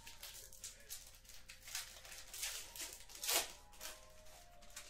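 Foil wrapper of a football trading-card pack crinkling and tearing as it is ripped open by hand, in a string of short crackles with the loudest rip a little over three seconds in.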